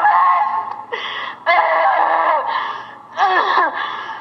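Loud human cries and wails in three bursts with short pauses between, the cries of people being prayed over during a deliverance prayer, heard through a television's speaker.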